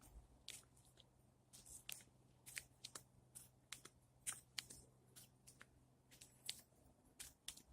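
Faint, irregular crunching clicks, several a second, with no steady rhythm.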